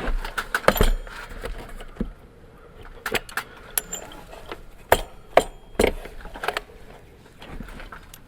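Irregular sharp clicks and light knocks, about ten spread unevenly, from a level and tools being handled against wooden clapboard siding.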